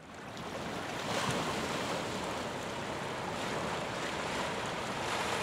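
Steady wash of waves and wind, rising out of silence in the first second.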